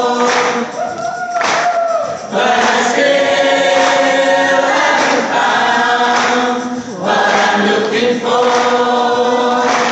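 A choir singing long, held chords phrase by phrase, with short breaks between phrases about two and seven seconds in.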